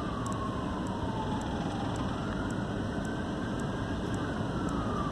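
Emergency-vehicle siren wailing, its pitch sliding slowly up and down over several seconds, above a steady low rumble.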